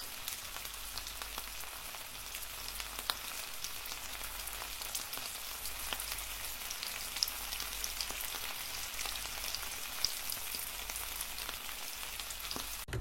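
A steady crackling hiss with many fine pops and clicks.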